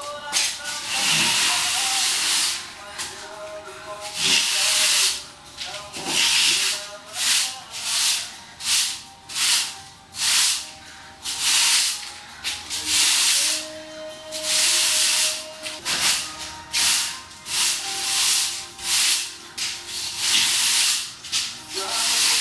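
Broom bristles swept in repeated strokes across a bare, rough rendered wall: a scratchy brushing about once a second, clearing off the dust left by sanding.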